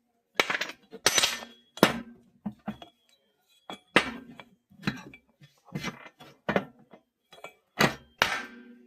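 Metal clinking and knocking from tools and parts during a washing machine bearing replacement: over a dozen sharp, irregular strikes, each with a brief ring.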